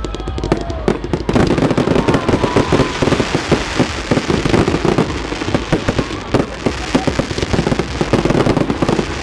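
Fireworks display going off in a dense, unbroken barrage of rapid bangs and crackles.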